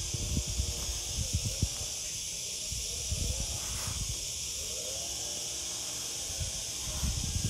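Steady hiss from a phone microphone's live-stream audio, with low bumps and rumble from the handheld phone being moved, most of them in the first two seconds and again near the end.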